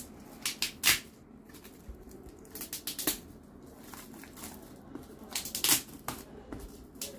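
Shiny metallic gift wrap crinkling in short, irregular crackles as a wrapped box is lifted and turned in the hands.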